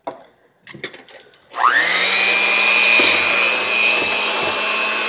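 Electric hand mixer switched on about a second and a half in, its motor whine rising quickly to speed and then running steadily as the beaters mix eggs, melted butter and sugar in a plastic bowl. A few handling knocks come before it starts.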